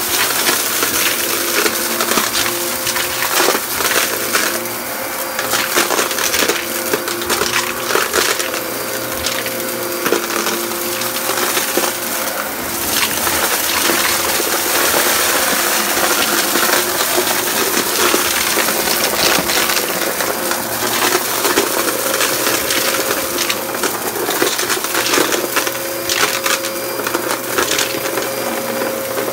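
Dyson upright vacuum cleaner running on carpet, its motor holding a steady tone, with a constant crackle and rattle of grit and debris being sucked up through the head.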